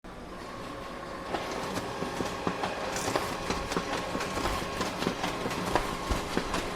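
Photocopier running: a steady machine hum with a constant high tone, and irregular clicks and clacks from about a second in.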